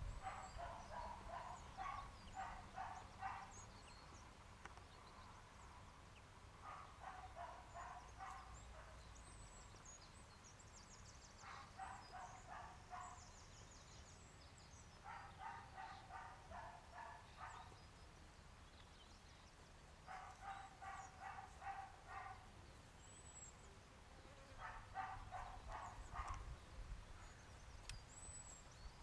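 Dog barking faintly in six bouts of quick repeated barks, each bout lasting a couple of seconds, with pauses of a few seconds between them.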